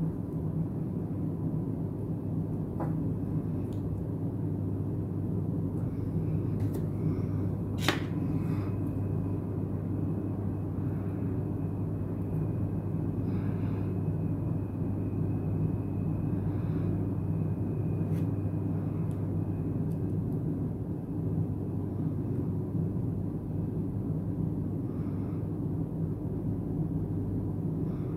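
Steady low background rumble, with a few faint sharp clicks of small tools on a phone's parts; the sharpest click comes about eight seconds in.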